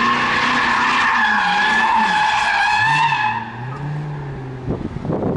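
Corvette V8 drifting, its rear tyres squealing in a wavering note while the engine note dips and then rises and holds. The squeal stops about three seconds in, leaving the engine, and irregular thumps take over near the end.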